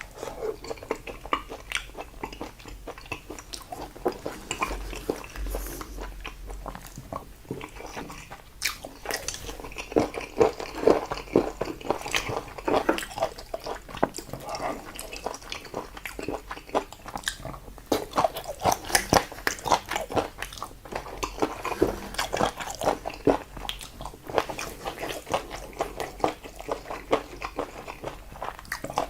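Close-miked eating sounds: steady chewing with wet smacks and clicks of a person eating salted fermented seafood.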